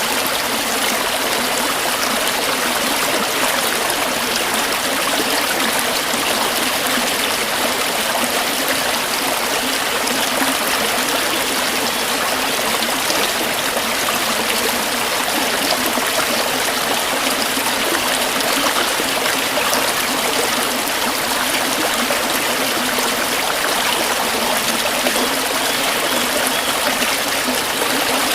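Running water of a stream, a steady rushing and trickling that holds even throughout.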